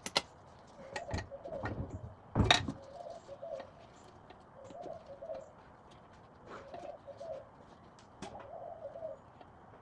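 A dove cooing in repeated low phrases, with a few sharp metal knocks from work on the engine, the loudest about two and a half seconds in.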